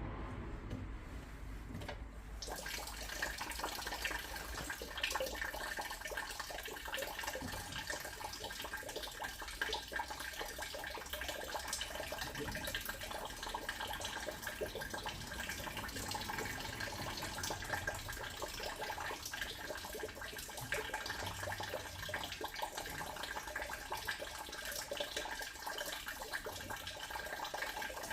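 Water running steadily, starting about two seconds in, with a faint steady high tone under it.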